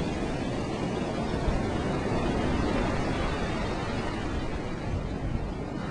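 Steady rush of surf on a beach, an even low rumbling noise with no distinct events.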